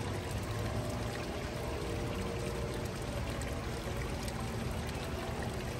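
Steady rush of pouring water, even and unbroken.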